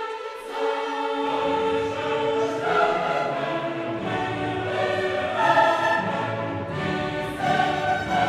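Choral music with orchestra, the choir holding long sustained chords; a deep low part joins about a second in.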